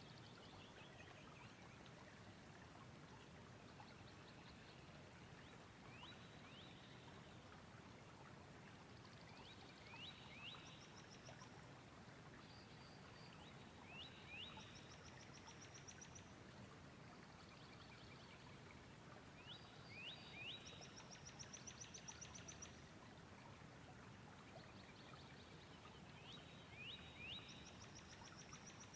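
Faint bird song over a steady hiss. One short phrase, a couple of quick rising whistles followed by a high trill, repeats every few seconds.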